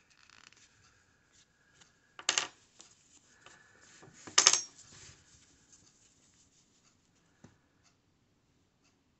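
Soft rubbing and scratching of yarn being handled, broken by two sharp clicks about two seconds apart, the second louder with a brief metallic ring: a metal crochet hook and yarn needle being picked up and set down on the tabletop.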